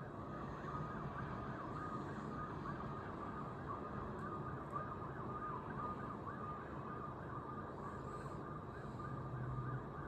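Distant emergency-vehicle siren wailing in a quick, repeating rise and fall, over a faint steady low drone.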